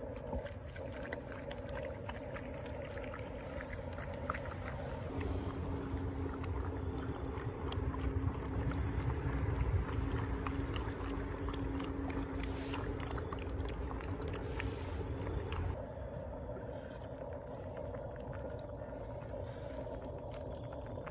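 Dogs eating soaked kibble from bowls: wet slurping and lapping with many small clicks of teeth and kibble against the bowls, over a steady low hum.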